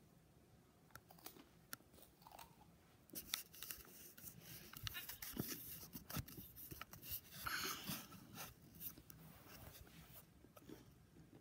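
Faint handling noise of the recording camera being moved and set in place: scattered clicks, taps and rustles, with a louder rustle about seven and a half seconds in.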